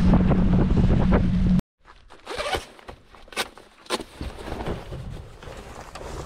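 A boat's motor running steadily under way, with wind on the microphone, stops abruptly about a second and a half in. Then a jacket rustles and its zipper is pulled up to the collar in a few short strokes.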